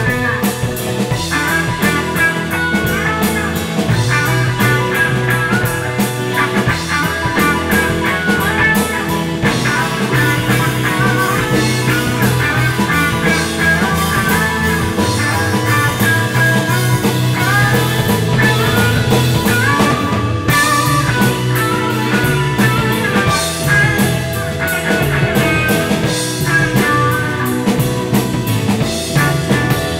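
A band playing an instrumental funk-rock jam: drum kit, keyboard, electric guitars and bass, with a lead line bending up and down in pitch.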